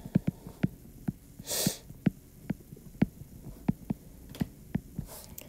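Stylus tip tapping and clicking on a tablet's glass screen during handwriting: a rapid, irregular run of sharp little clicks. A short hiss comes about one and a half seconds in.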